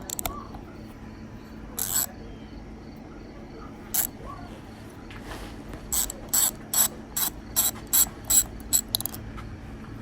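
Ratchet wrench clicking as it loosens the wheel nuts on a power wheelchair: a few single clicks, then a quick run of about ten clicks, a little under three a second, near the end.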